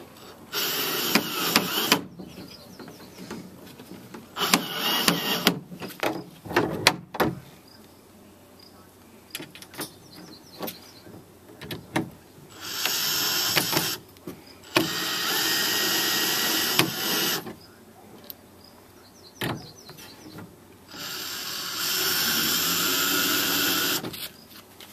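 A power drill running in five short spells of one to three seconds each, pre-drilling holes and driving screws to fasten the hinge brackets. Small clicks and knocks of parts being handled come between the runs.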